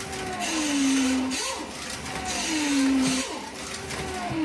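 1:32-scale slot cars lapping an oval track, their small electric motors giving a whine that drops in pitch on each pass, with a hiss of pickup and tyres on the track. The passes repeat about every two seconds.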